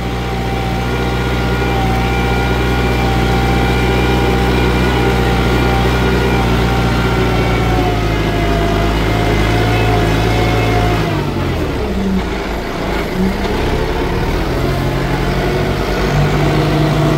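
Kubota farm tractor's diesel engine running steadily. About eleven seconds in its note drops and wavers, then it settles into a steady run again.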